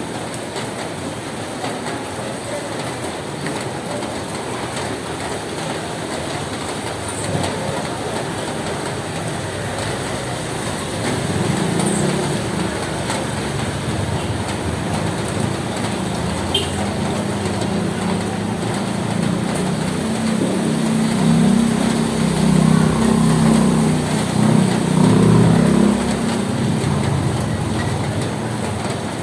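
Steady rain on a roof, an even hiss. About a third of the way in a low rumble joins it, swelling in the second half and easing off near the end.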